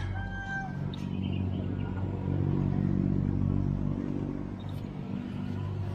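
A motor engine running steadily with a low hum, swelling about two seconds in and easing off again.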